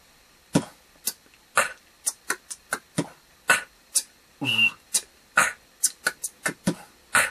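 Human beatbox pattern played slowly: sharp mouth-made kick, snare and hi-hat strokes. About four and a half seconds in, a held whistle-like note sounds on a bass beat, which is the beatboxed samba whistle.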